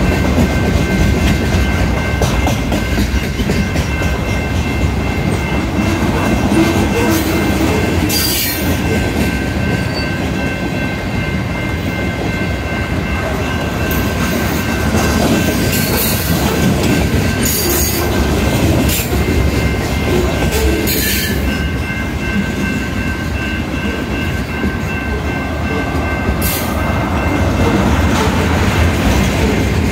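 Freight cars of a long mixed freight train rolling past at a grade crossing: a steady rumble and clatter of wheels on the rails, with a few sharp squeals or clanks along the way. The crossing signal's bell rings over it.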